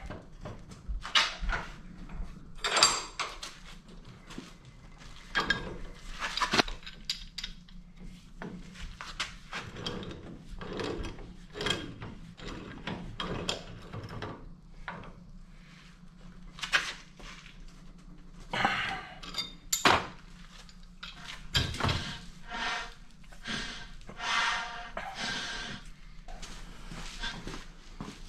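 Metal parts and hand tools clinking, knocking and clattering at irregular intervals while a hydraulic cylinder is being repacked, some knocks ringing briefly, over a steady low hum.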